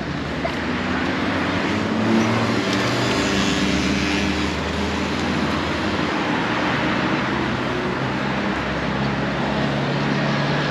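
City street traffic: car engines running as vehicles pass, with a steady hum of road noise.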